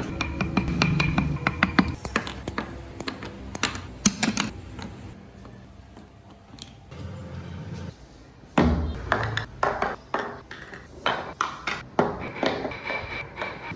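A series of light taps and clicks from hand work on wood, with a quieter stretch in the middle before the tapping picks up again.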